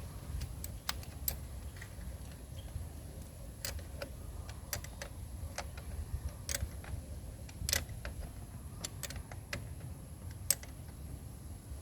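Light metallic clicks at irregular intervals from a 10 mm spanner tightening the clamp nut on a car battery's positive terminal, over a steady low background rumble.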